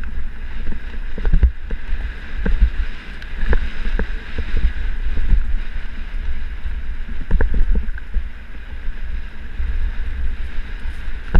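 Wind buffeting the microphone of a camera mounted on a mountain bike descending a dirt singletrack, a continuous low rumble, with frequent sharp clicks and knocks from the bike rattling over the rough trail.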